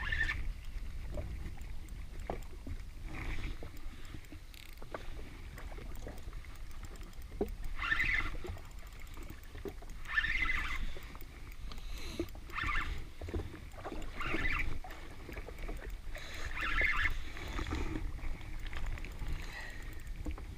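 Small waves slapping and sloshing against a jet ski's hull in bursts every few seconds, over a steady low wind rumble on the microphone, with scattered light ticks as a spinning reel is wound in.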